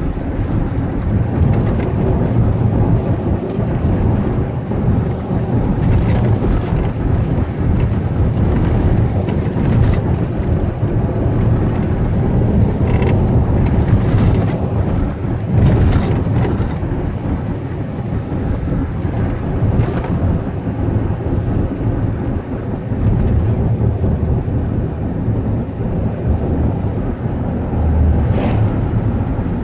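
Steady low rumble of a car driving on a country road, tyre and wind noise heard from inside the car, with a few brief knocks.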